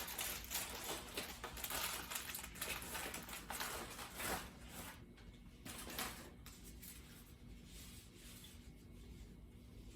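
Faint rustling and crinkling of packaging being handled, with a few small knocks, busier in the first half and quieter later.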